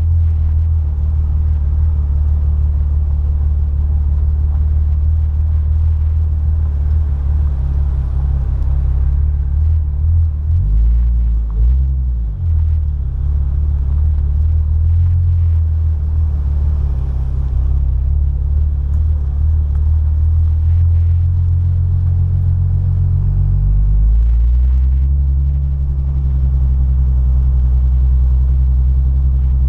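Nissan 350Z's 3.5-litre V6 engine running under way as a low, steady drone. The note wavers with a brief dip about 11 seconds in and steps down in pitch about 24 seconds in.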